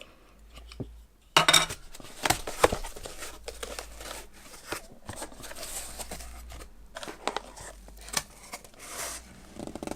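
A delivered cardboard box being opened by hand: cardboard and packing material crinkling and tearing, with many sharp clicks and knocks, starting about a second in.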